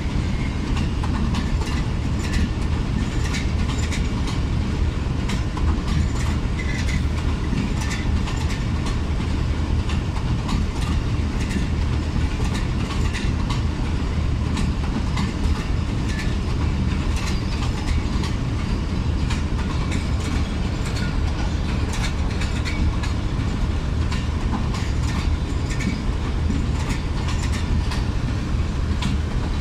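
Passenger coaches of an arriving train rolling past close by: a steady, loud rumble and low hum, with wheels clicking and clacking irregularly over the rail joints.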